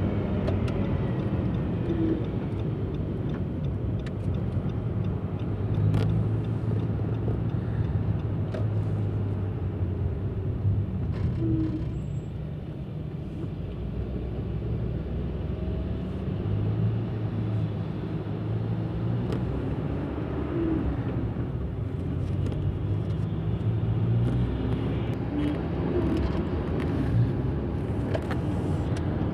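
Steady low hum of a car's engine and tyres on the road, heard from inside the cabin while driving in traffic.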